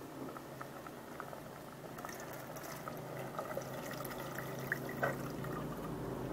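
Faint pouring with scattered light clicks as grated coconut and then water are tipped into a perforated metal strainer in a basin, for pressing coconut milk.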